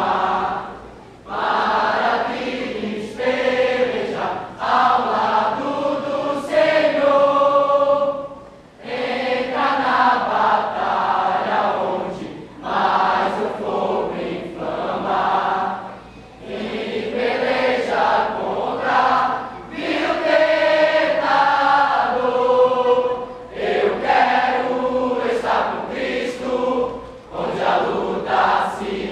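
Youth choir of many voices singing together, in phrases of a few seconds each with short breaks between them.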